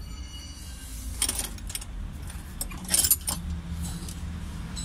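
Small metal objects clinking and jingling, with the sharpest clinks about a second in and again around three seconds in, over a low steady hum.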